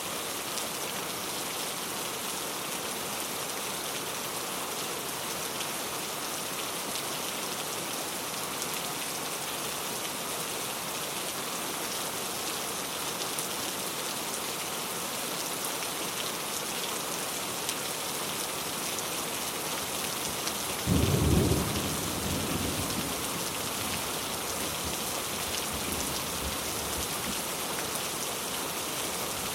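Steady rain falling, an even hiss, with one low thunder rumble about two-thirds of the way through that fades over a couple of seconds.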